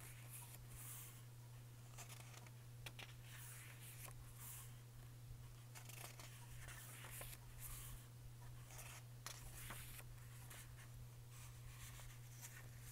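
Faint rustling and soft flicks of paper pages being turned by hand in a small hardcover songbook, over a steady low hum.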